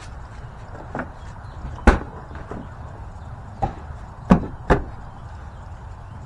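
Five sharp knocks, irregularly spaced, the second the loudest, over a steady low rumble.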